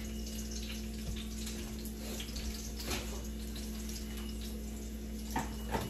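Salmon fillets sizzling steadily in a skillet, with a couple of faint knocks near the end.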